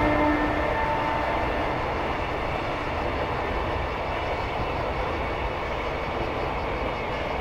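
Freight train container wagons rolling past: a steady rolling noise of steel wheels on rail. The tail of a pitched train horn dies away in the first second.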